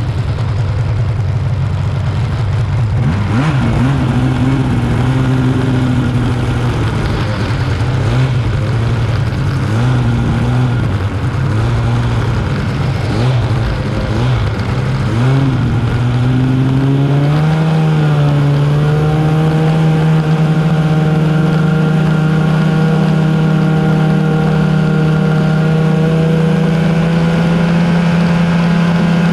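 Arctic Cat snowmobile engine heard close up from on board while riding. Its pitch rises and falls with the throttle for the first half, then climbs a little past halfway and holds steady at cruising speed.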